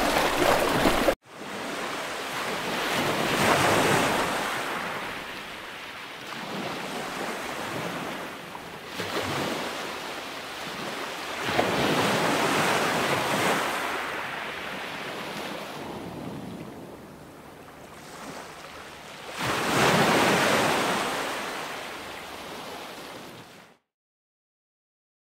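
Sea waves breaking and washing up a beach, the surf swelling and fading about every eight seconds, with wind buffeting the microphone. The sound drops out briefly about a second in and again near the end.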